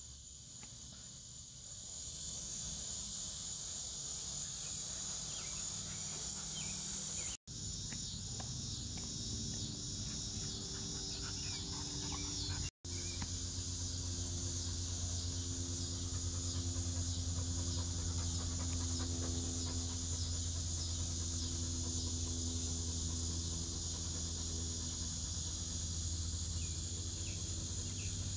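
Insects chirring in a steady, high-pitched chorus, with a low steady hum beneath it from about a quarter of the way in. The sound drops out for an instant twice.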